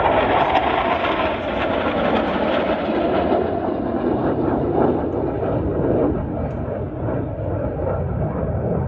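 Jet engine noise from a pair of Blue Angels F/A-18 Super Hornets flying past in formation: a steady roar whose higher tones slowly fade as the jets pull away.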